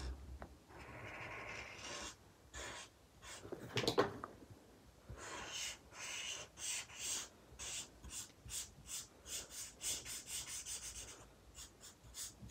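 Felt-tip nib of a Promarker alcohol marker rubbing back and forth on drawing paper as an area is coloured in. From about five seconds in come quick short strokes, roughly two or three a second.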